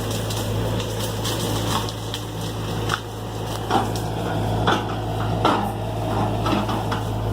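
John Deere excavator's diesel engine running steadily, with irregular knocks and clatter as it works, several sharp ones in the middle.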